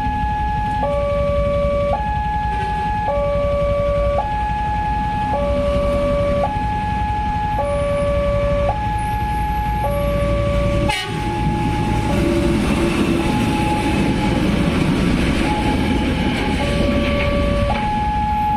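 Indonesian railway level-crossing warning alarm sounding a two-tone electronic signal, high and low tones alternating about once a second, which warns that a train is approaching. About 11 s in the alarm breaks off suddenly and a louder rumbling noise from the train comes up. The alternating tones return near the end.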